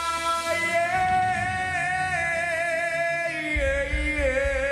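Live band with a singer holding one long high note, then moving lower with a wavering vibrato near the end, as the low end of the band comes in more strongly.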